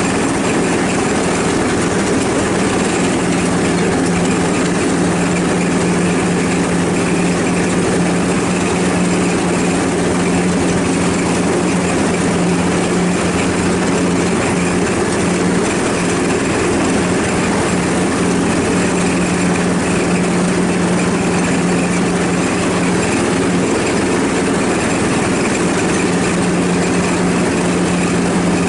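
Ride-on lawn mower engine running steadily, with an even hum that holds one pitch.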